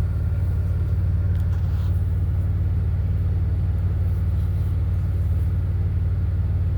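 Steady low rumble of an idling vehicle engine, even and unchanging throughout.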